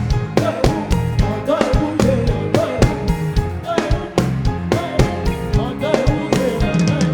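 Live band music: a steady drum-kit beat with a bass line and a singing voice over it.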